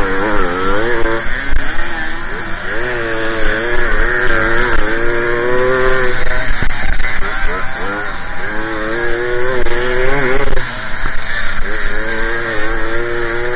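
Small two-stroke moped engine revving hard while racing, its pitch rising and falling again and again as the throttle is opened and closed through the turns, over a steady rushing noise.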